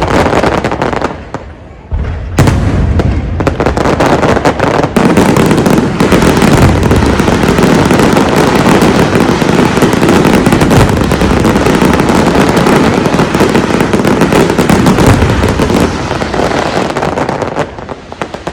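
A fireworks display bursting in a dense, continuous barrage of bangs and crackling, with a brief lull about a second in and an easing near the end.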